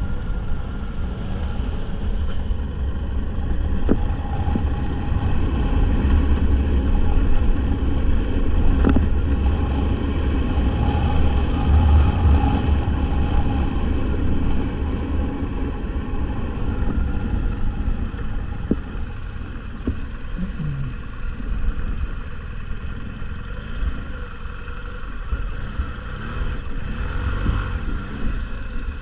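Off-road vehicle's engine running while driving, a heavy low rumble that is strongest over the first half and eases later, with a few sharp knocks.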